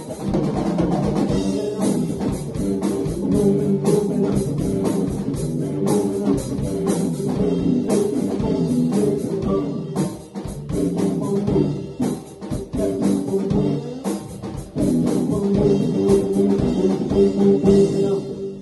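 Rock band playing: electric guitar, electric bass and drum kit together, with a sparser, quieter stretch past the middle before the full band comes back in.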